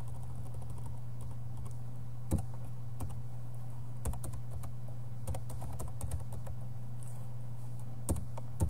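Computer keyboard being typed on in scattered keystroke clicks, with sharper strokes about two seconds in and near the end, over a steady low hum.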